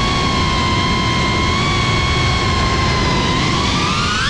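Cinewhoop FPV drone's motors and ducted propellers running with a steady high whine, rising in pitch near the end as the throttle comes up.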